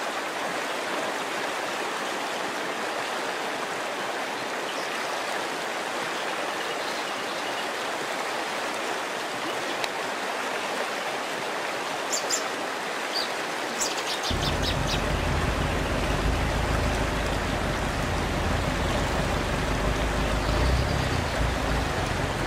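Steady, even hiss of water, like rain or a running stream. A few short high chirps come about twelve seconds in, and a deeper low rumble joins the hiss soon after and continues.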